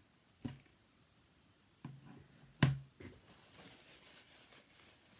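A few short knocks and taps of craft supplies being handled on a desk cutting mat, the loudest about two and a half seconds in, as a plastic ink pad is set down.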